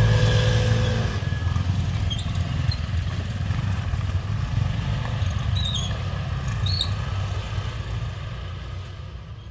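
Motorcycle engines and traffic running steadily as a low rumble, fading away near the end, with a few short bird chirps high above.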